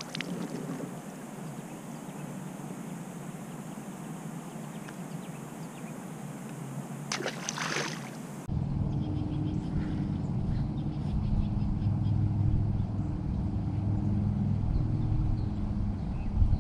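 Open-air hiss with a brief rustle about seven seconds in. About halfway through, it switches abruptly to a boat motor's steady low hum.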